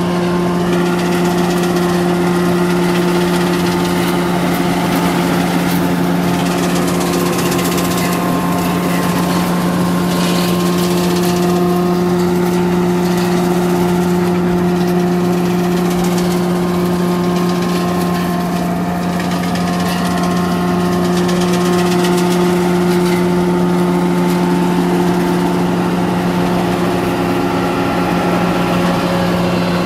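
Braud over-the-row olive harvester running steadily at working speed as it straddles the olive hedgerow, a constant engine hum with a noisy rustle and rattle of branches being shaken through the machine.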